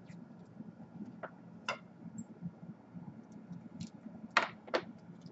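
Amber polyimide (Kapton) tape being peeled off its roll in short crackling pulls, with a few light handling clicks; the two loudest pulls come close together near the end.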